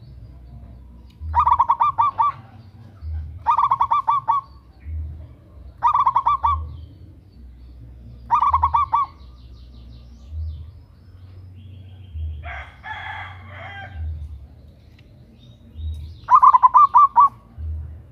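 Zebra dove (perkutut) cooing: five short bursts of rapid staccato coos, each about a second long, with a rougher, different bird call in between about two-thirds of the way through.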